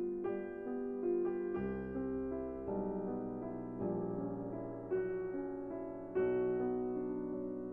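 Slow, soft piano music: gentle sustained notes and chords changing every second or so.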